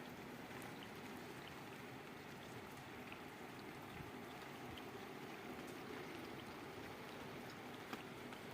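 Steady rain falling, with faint scattered drips.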